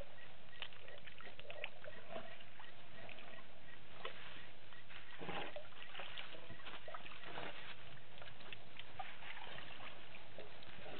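African elephants drinking at the edge of a waterhole: water sloshing and dripping, with many small irregular splashes and clicks.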